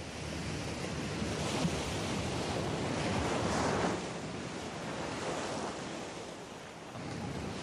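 Sea waves surging and breaking on rocks against a stone seawall, with wind; the surf swells to its loudest about three to four seconds in.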